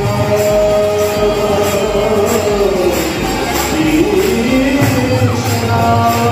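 Devotional singing (kirtan), a single melodic voice holding and bending its notes over a steady beat of metallic jingling strikes.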